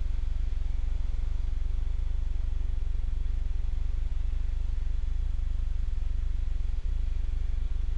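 Steady low drone of an aircraft engine in flight, heard through the cockpit intercom between radio calls.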